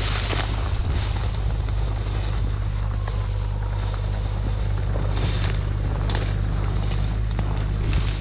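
Excavator's diesel engine running at a steady idle hum, with reeds and grass swishing against the camera as someone pushes through them.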